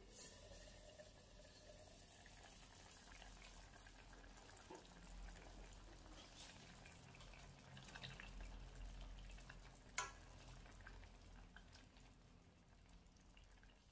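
Faint bubbling of broth simmering in a stainless-steel pot of chicken, potato and carrot, with a light clink as the glass lid is lifted at the start. One sharp knock comes about ten seconds in.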